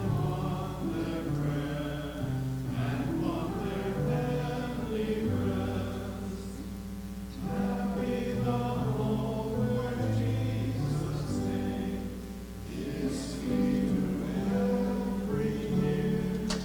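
A slow hymn sung by a group of voices, with sustained chords changing every second or two.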